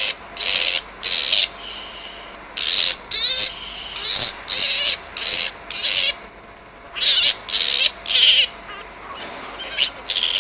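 Juvenile grey-headed flying-fox screaming in distress while being handled: short, shrill calls about two a second, in runs broken by brief pauses. The carer reads this persistent screaming as more than normal upset, a sign of a significant head injury.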